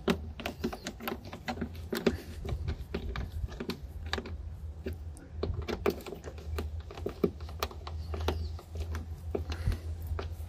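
Irregular light clicks and taps of a hand screwdriver driving a self-tapping screw through a plastic mudflap into the wheel-arch liner, the bit and screw head knocking against the plastic, over a steady low rumble.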